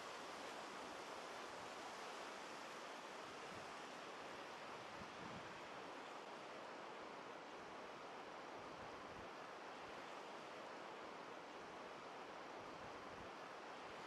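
Small surf breaking offshore and washing up over a sandy beach, heard as a steady, even hiss of waves.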